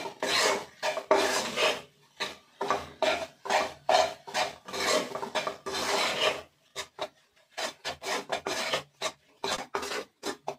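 Metal spoon scraping and stirring gram flour roasting in ghee in a nonstick kadai, with repeated rasping strokes against the pan. The strokes are long and dense for the first six seconds or so, then turn short and quick, about three a second.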